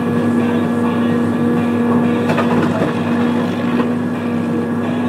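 Diesel engine of a new John Deere machine running steadily with a constant hum. A brief clatter comes a little over two seconds in.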